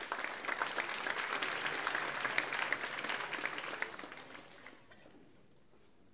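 Audience clapping and applauding, dying away about four to five seconds in.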